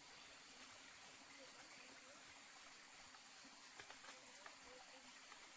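Near silence: faint steady background hiss with a few soft clicks about four seconds in.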